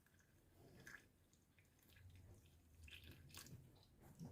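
Very faint sound of boiled water being poured, with a few light drips.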